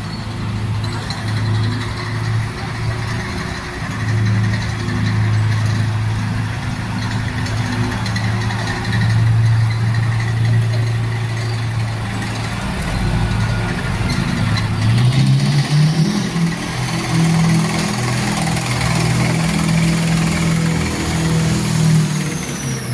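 Engines of WWII military vehicles passing slowly: a Willys jeep's engine running with a steady low hum, then a tank's engine rising in pitch and getting louder as it comes close, about two-thirds of the way through. Near the end a high whine falls in pitch.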